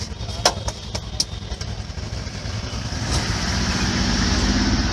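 Road traffic rumbling steadily, with a vehicle coming up louder in the second half. A few short, sharp clicks in the first second and a half, the loudest about half a second in.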